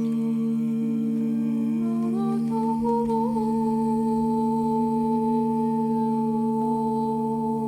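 Improvised music of sustained hummed tones over a steady drone. About two seconds in, one voice slides up in small steps to a higher note and holds it.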